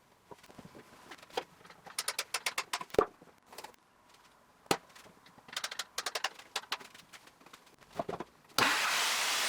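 Workshop handling sounds: scattered knocks and short runs of rapid clicking as tools and wood are handled, with two sharper knocks. About a second before the end, a loud steady rushing noise starts suddenly.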